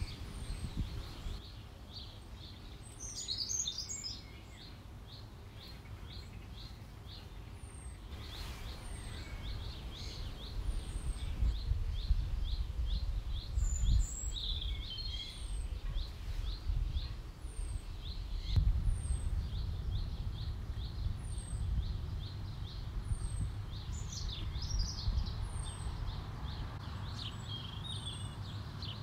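Garden birds calling and singing: a steady quick run of short high chirps, a thin high down-slurred chirp repeating every second or two, and louder song phrases now and then. Under it is a low rumble from wind or handling on the microphone.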